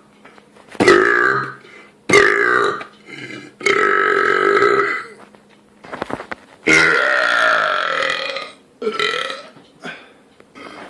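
A man's loud belches, about five in a row, the longest lasting nearly two seconds in the middle.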